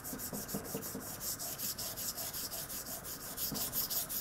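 A 52100 carbon-steel knife blade being worked back and forth on a 1000-grit waterstone in quick, even strokes, several a second, a gritty scraping rasp. The blade is grinding a small bevel on a stone used with little water.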